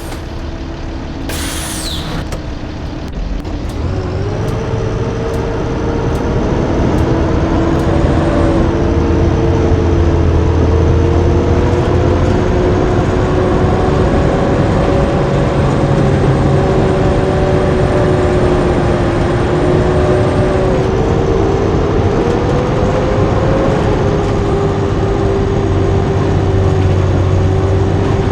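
Blue Bird D3FE school bus: a short hiss of released air about a second in, then the diesel engine pulls away and speeds up from about four seconds in. It runs on steadily with small pitch changes as it shifts and changes speed.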